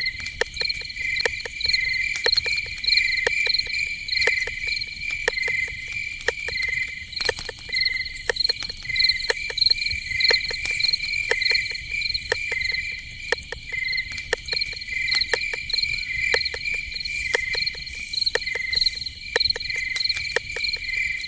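Night insect chorus: crickets chirping in steady, rapidly repeated high pulses, with many short, sharp clicks scattered irregularly throughout.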